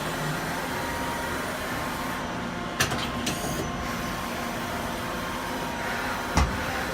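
Steady mechanical hum of a Daewoo Puma 250L CNC lathe, powered up and running a program. A sharp click comes a little before three seconds in, with a softer one just after, and a heavier knock about six and a half seconds in.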